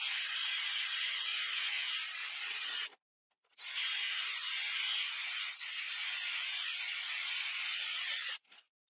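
DeWalt brushless cordless drill spinning a round pad against a wooden knife handle: a high motor whine over a rushing hiss, in two runs with a short stop a little under three seconds in, cutting off near the end.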